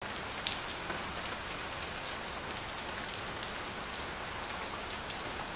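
Steady rain falling, an even hiss with scattered sharper drop ticks, a louder one about half a second in and another about three seconds in.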